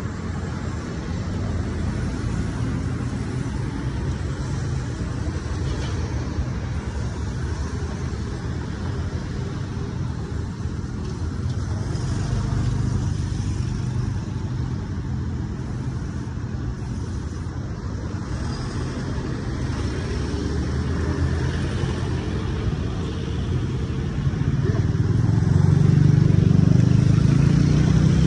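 Street traffic: cars and motorbikes passing on the road, a steady rumble that grows louder near the end.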